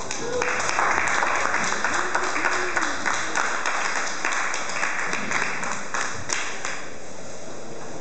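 Audience applauding, with a few voices calling out over the clapping. The applause starts about half a second in and dies away near the end.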